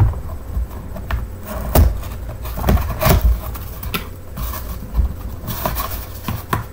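Cardboard box being handled and opened by hand: knocks and scrapes of the flaps and sides, with a few low thumps, and a spell of rustling about halfway through.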